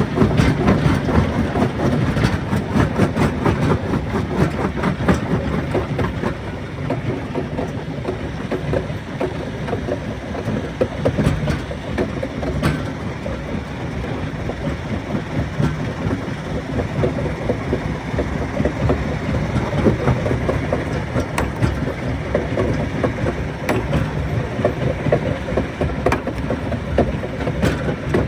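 Rock crusher running, with a low machine rumble and a rapid, continuous rattling and knocking of stone being broken. The knocking is densest and loudest in the first six seconds.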